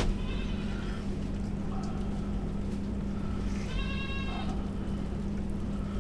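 Two drawn-out pitched animal calls, a faint one at the start and a louder one about four seconds in, over a steady low hum.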